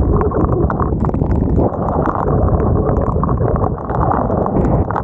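Wind buffeting the microphones of a helmet-mounted 360 camera while cycling in the rain, a loud steady rumble, with many small irregular taps of raindrops striking the camera.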